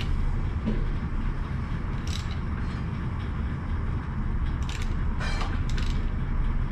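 A Honda K24 engine being turned over by hand with a wrench on the crankshaft bolt toward top dead center: a few short bursts of clicking about two seconds in and again around five seconds in, over a steady low rumble.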